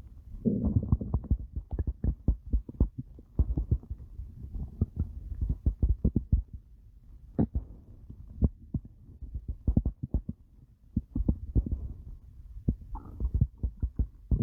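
A stomach growling and gurgling: a quick, irregular run of low pops and squelches with short rumbling gurgles between them.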